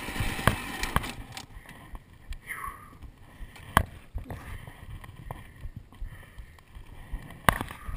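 Scattered sharp knocks and clicks a few seconds apart, over a faint rushing noise that drops off about a second in.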